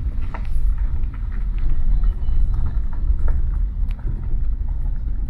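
Car driving, heard from inside the cabin: a steady low rumble of engine and tyres on the road, with scattered light clicks and knocks.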